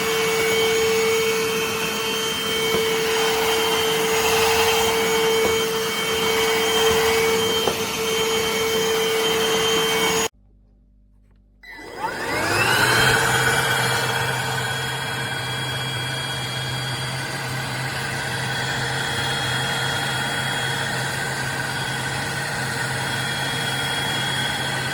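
Anktel PowerClean 2400 cordless handheld vacuum cleaner running with a steady motor hum and whine. About ten seconds in it cuts off. A second and a half later it starts again, its whine rising as the motor spins up, then runs steady.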